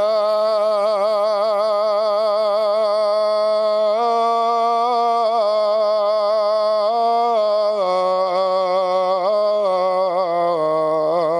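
A male muezzin chanting the adhan, the Islamic call to prayer. This is one long, unbroken, ornamented phrase of the line "hayya ʿala l-falah", with the pitch wavering in quick turns. The pitch steps up about four seconds in and drops back down near eight seconds.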